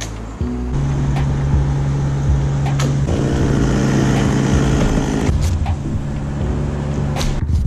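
Chainsaw engine running and cutting through the top of a cypress trunk. The note is fullest from about three to five seconds in, then eases near the end once the cut is through.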